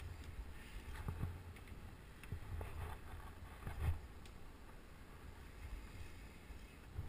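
Wind rumbling on a helmet camera's microphone during a rappel, with a few scrapes and knocks as boots push against the rock face and gear moves; the loudest knock comes about four seconds in.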